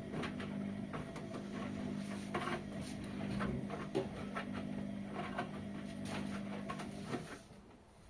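Whirlpool washing machine running with a steady motor hum and irregular clicks and knocks over it; the hum stops about seven seconds in.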